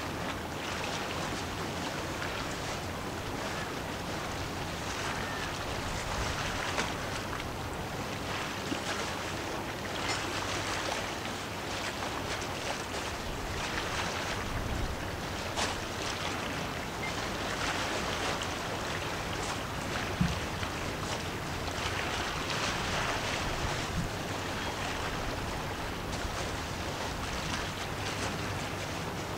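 Steady wind on the microphone over washing waves that swell and fade every few seconds, with a faint low hum underneath and a couple of brief knocks.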